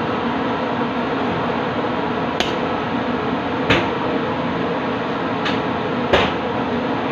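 Steady noise of a kitchen ventilation fan, with four short sharp knocks, the loudest about three and a half and six seconds in.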